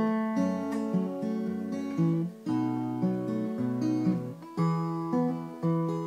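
Cutaway acoustic guitar playing an instrumental intro, picked chords in a steady rhythm with a new attack about every half second, each left to ring and fade.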